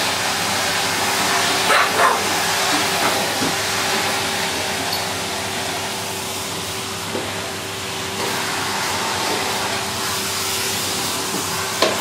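Henry tub vacuum cleaner running steadily with a constant hum, and a pug barking twice about two seconds in.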